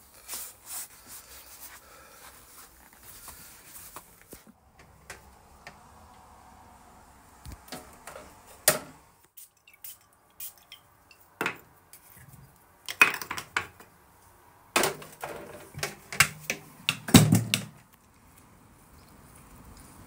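Knocks, clicks and rustling of things being handled, with sharper knocks and thumps bunched in the second half; the heaviest, with a low thud, comes a couple of seconds before the end.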